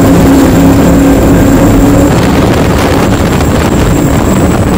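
High-performance catamaran's engines running flat out at speed, with wind rushing over the microphone. The steady engine tone fades under the wind noise after about two seconds.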